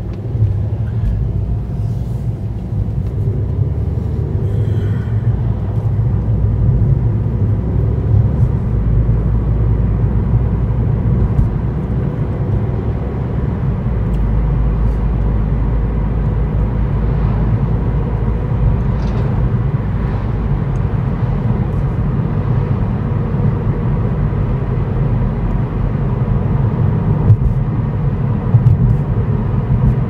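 Car driving on a road: a steady low rumble of engine and tyres.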